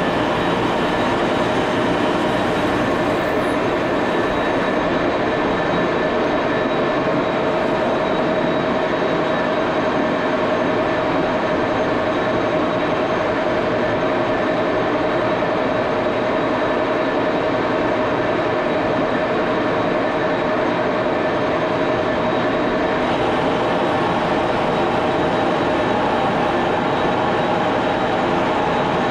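Baby Axelson lathe running under power, turning an aluminum bar and taking a cut: a steady machine drone with a constant whine held at one pitch.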